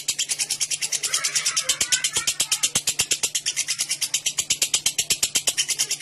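Lovebird giving a long, unbroken ngekek: a fast, even, rattling chatter of sharp high notes, about nine or ten a second. This is the long ngekek song that lovebird keepers prize.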